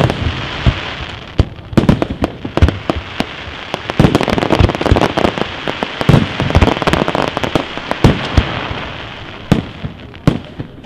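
Aerial fireworks shells bursting in quick succession, with many sharp bangs over a dense crackle. The bangs thin out near the end.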